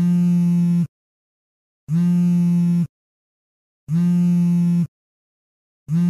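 Mobile phone vibrating: a steady low buzz about a second long, repeating every two seconds with silence between, three times, and a fourth buzz starting at the very end.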